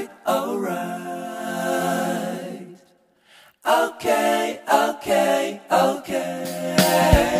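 Background music: a song's singing voices, with a brief gap about three seconds in.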